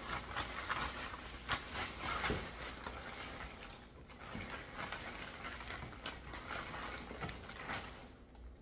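Plastic wrapping crinkling and rustling in irregular handfuls as a rifle is pulled out of its plastic bag. The crinkling dies down near the end.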